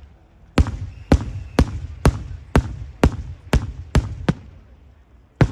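Daytime fireworks bursting in a rapid rhythmic run of sharp bangs, about two a second, each followed by a rumbling echo. The run pauses for about a second near the end before one more bang.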